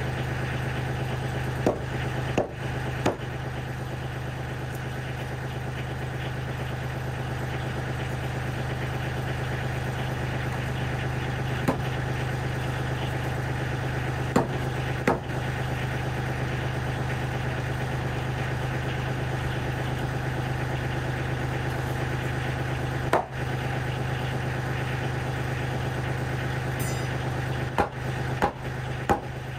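Kioti CK30 compact tractor's three-cylinder diesel engine idling steadily, with about ten short sharp knocks scattered through, from work on the wall framing.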